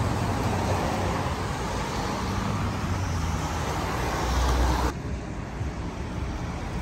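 Steady road noise of a car driving, changing abruptly to a quieter, lower rumble about five seconds in.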